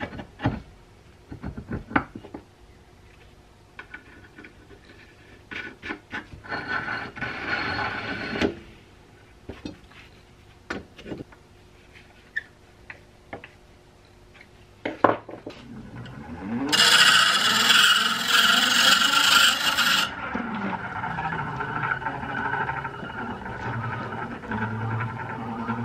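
Clicks, knocks and a brief scrape as the 1920s Keystone Iron City hand-crank grinder is handled. About fifteen seconds in, the grinder is cranked up to speed and its gears whir, rising in pitch. Metal held against the grinding stone gives a loud grinding hiss for about three seconds, after which the gear whir runs on, slowing and then speeding up again.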